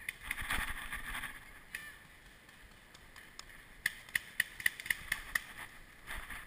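Paintball marker firing a quick string of about eight shots, about five a second, after a brief scuffle of movement about half a second in.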